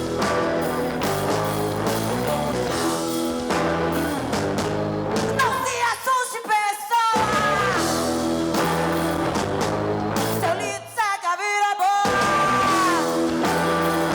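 Live band music with singing. The bass and drums drop out twice for about a second, leaving gliding, wavering vocal lines.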